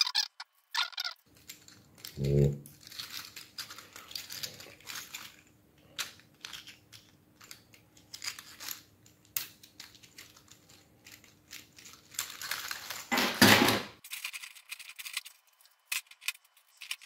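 Clicks, crackles and rattles of a 3D-printed plastic flexi toy's interlocked joints being bent and worked loose by hand. There is a low thump about two seconds in and a louder crackling scrape a little before the end.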